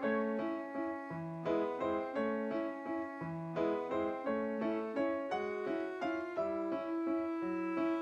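Background piano music: a calm, evenly paced run of single notes, a few per second.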